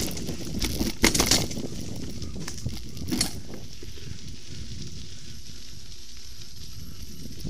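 Mountain bike riding over a bumpy dirt forest trail: rattling knocks of the bike over roots and bumps, sharpest about a second in and again about three seconds in, then a steadier low rumble of tyres rolling on dirt.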